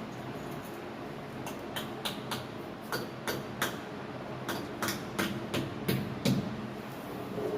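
A steady low hum under a series of light, irregular taps and clicks, about a dozen of them, from about a second and a half in until near the end.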